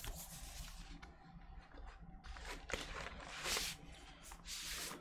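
A cardboard vinyl album jacket and paper inner sleeve being handled: paper rustling and sliding in several bursts, with one sharp click about midway.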